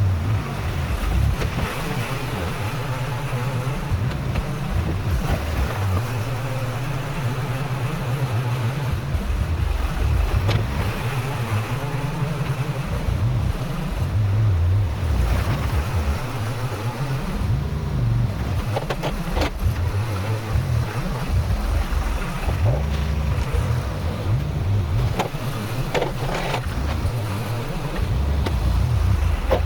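Tractor engine running with its load rising and falling while spreading compactable gravel. A few brief knocks come through, around the middle and again a few seconds later.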